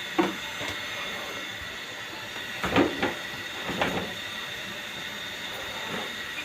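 A few short knocks and scraping clatters from work on an air-conditioning unit, loudest about three seconds in, over a steady hum with a faint high whine.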